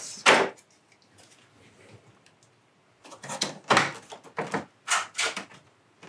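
Plastic cover panel of a Mitsubishi Kirigamine FZ wall-mounted air conditioner being unclipped and pulled off: one sharp snap just after the start, then after a quiet pause a quick run of plastic clicks and knocks.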